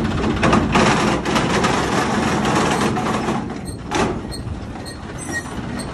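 Tractor engine running at idle, with a louder rushing noise over it for the first three seconds or so and a short burst about four seconds in.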